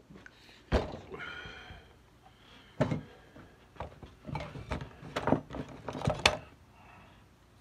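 Irregular metal clinks and knocks of oil pump parts and bolts being handled during assembly, the first knock followed by a brief metallic ring and the rest coming in a quick cluster near the end.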